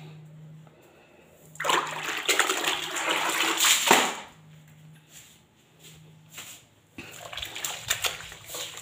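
Water splashing and sloshing as a floor cloth is rinsed in a plastic bucket of water. There is a loud stretch of about two seconds shortly after it begins, then softer sloshing, which picks up again near the end.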